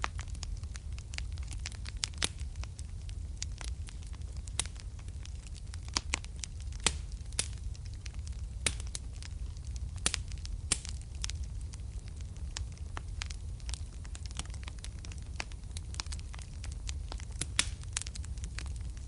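Fire crackling in a fireplace, with frequent irregular sharp pops over a steady low rumble.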